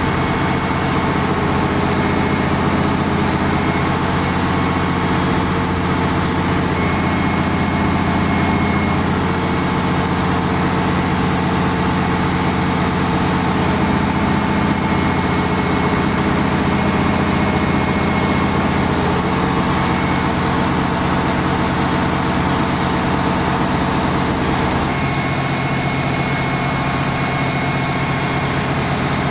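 Mobile crane's diesel engine running steadily while it holds and turns a steel boat hull. Its note shifts slightly near the end.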